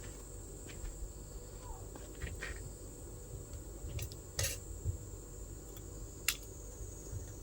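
Insects trilling steadily at a high pitch, with a few sharp clicks, the loudest about six seconds in.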